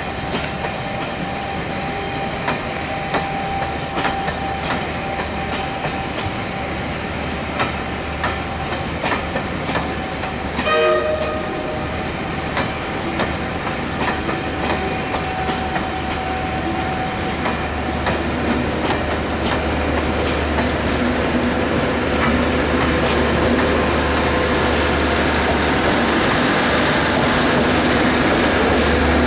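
Passenger coaches of a steam-hauled rail tour rolling slowly past over pointwork, the wheels clicking irregularly over rail joints and crossings, with a faint steady whine underneath. There is a short pitched tone about eleven seconds in, and a low rumble builds, growing louder toward the end.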